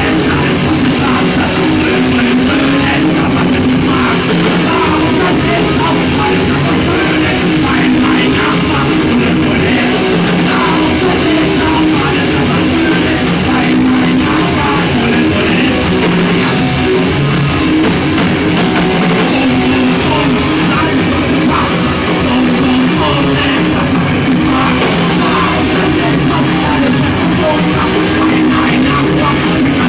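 A rock band playing live at steady full volume, with electric guitars and drums under a singer's vocals into a microphone.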